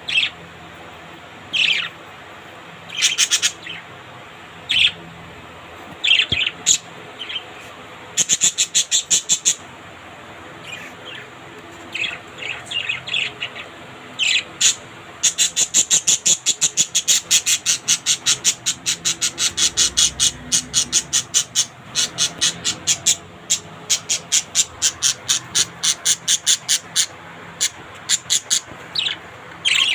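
Pet parrots calling with sharp, high chirps. There are single calls and short runs at first, then long, fast trains of several chirps a second through the middle and latter part.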